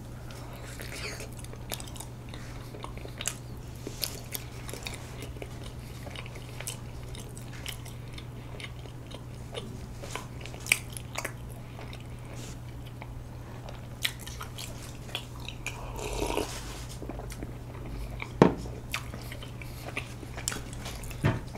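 A person chewing a soft, sticky rice cake with sweet red bean filling, close to the microphone: quiet wet mouth sounds with small clicks throughout. There is a louder short noise about two-thirds of the way through, and a sharp click a couple of seconds after it.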